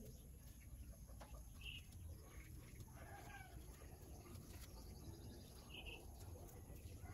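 Near silence: a faint background with a few soft ticks and two short, faint high-pitched calls.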